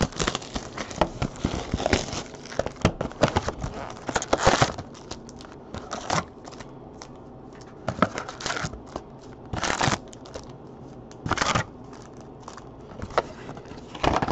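Foil-wrapped trading card packs (2015 Topps Chrome football) crinkling and rustling as they are taken out of the box and stacked by hand: dense crinkling for the first few seconds, then separate short rustles every second or two as single packs are set down.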